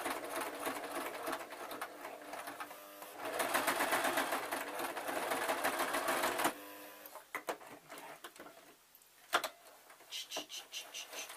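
Electric sewing machine stitching through thick fur fabric: one run, then a louder, faster run that stops suddenly about six and a half seconds in. A few scattered clicks and knocks follow.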